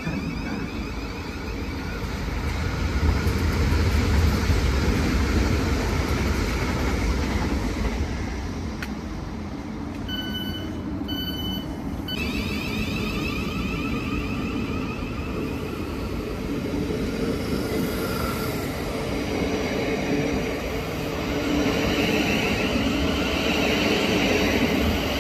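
South Western Railway electric suburban train pulling out of the platform, its running gear rumbling, loudest a few seconds in, with wheels beginning to squeal on the rails near the end. Two short beeps sound about ten seconds in.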